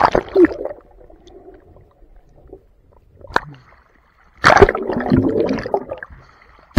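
Water splashing as a waterproof action camera plunges underwater, then muffled underwater gurgling with a single sharp click, and a second loud burst of splashing about four and a half seconds in as the camera breaks back through the surface.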